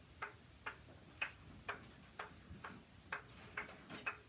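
A ping pong ball bounced repeatedly on a rubber-faced paddle, a light click about every half second, coming a little faster near the end.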